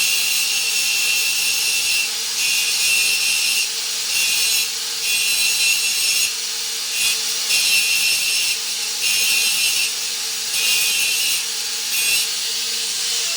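Electric power tool running steadily while it is worked against steel in about nine separate rasping passes of around a second each. Its motor winds down just before the end.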